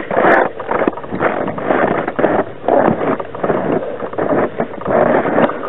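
Footsteps crunching in deep snow, an uneven crunch about every second.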